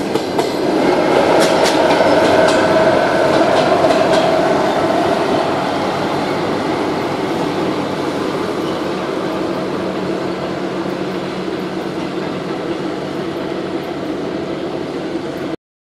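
Passenger coaches of a departing train rolling past, wheels clicking over rail joints, with a thin wheel squeal for a few seconds after the start. The rolling noise slowly fades as the train pulls away, then cuts off suddenly near the end.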